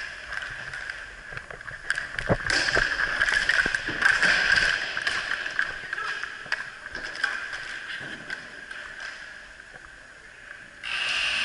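Inline skate wheels rolling and striding on a hard rink floor during roller hockey play, a steady hiss broken by sharp clicks and clacks of sticks and puck, busiest a few seconds in. Near the end the sound turns suddenly louder and brighter.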